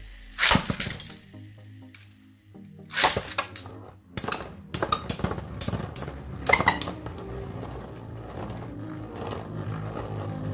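Two Metal Fight Beyblade spinning tops, Storm Pegasus and Poison Serpent, battling in a plastic stadium. A sharp clatter about half a second in is followed by another near three seconds, then a quick run of metallic clicks and knocks from about four to seven seconds in as the tops strike each other and the stadium wall.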